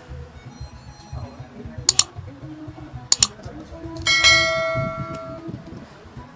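Two pairs of sharp metallic clicks, then a metal object struck once and left ringing, dying away over about a second and a half.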